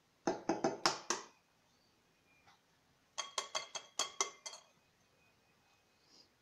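An eggshell being tapped against the rim of a glass mixing bowl to crack it: two bursts of quick, sharp taps, the second burst with a light glassy ring.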